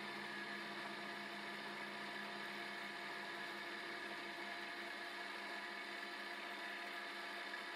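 X3 milling machine running steadily, its spindle turning a small gear cutter: an even hum made of several held tones that do not change.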